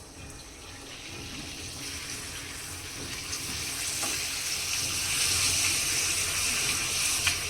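Water running steadily, as from a tap, growing louder over the first few seconds and then holding.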